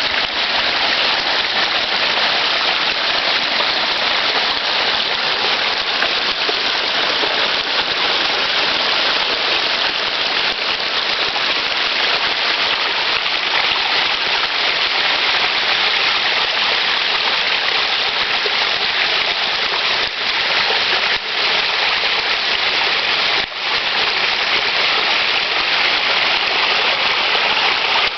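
Water pouring steadily over a built backyard garden waterfall into its pond, an even splashing hiss, with a few brief dips in level late on.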